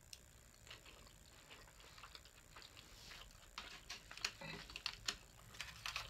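Faint, irregular clicks and taps of chopsticks against a clear plastic sushi takeout tray as sushi is picked up, coming thicker and louder in the second half.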